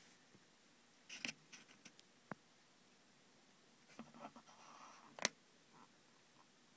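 Faint handling noise of a phone held against a telescope eyepiece: a few small scattered clicks and a light scratchy rustle, the sharpest click about five seconds in.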